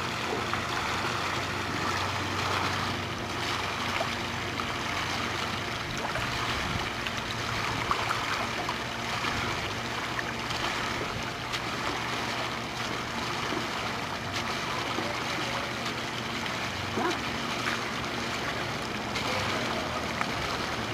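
Swimming-pool water lapping and trickling steadily, with a steady low hum underneath.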